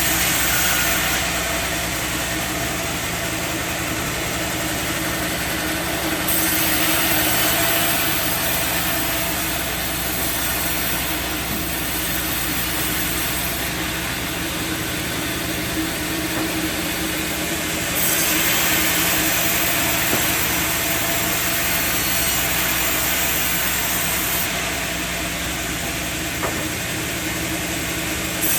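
Sawmill machinery running steadily: an engine-like hum with a hiss over it. The sound changes abruptly several times.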